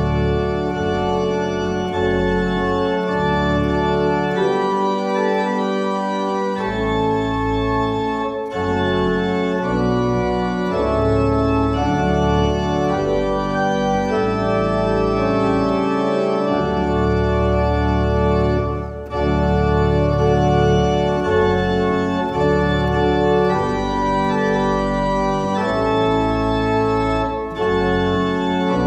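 Organ playing a postlude: full held chords over a deep bass line, the chords changing every few seconds.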